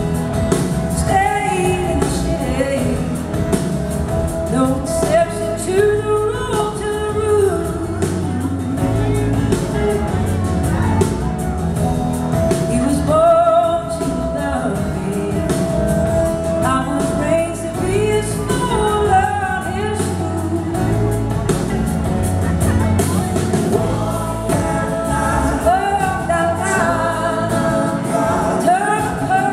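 Live band music: a woman singing lead over electric guitars, bass and drums, heard from the audience in a concert hall.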